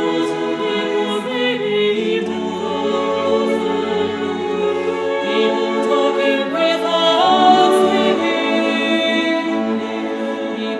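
A choir singing slow, sustained chords without accompaniment.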